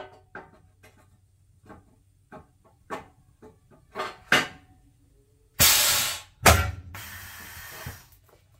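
Pneumatic aluminium punching press for Xingfa 93 system door profiles: a string of sharp metal clicks and knocks as the aluminium profile is worked into the die, then past halfway a loud rush of air, a heavy bang of the punch stroke, and about a second of air hiss as the cylinder exhausts.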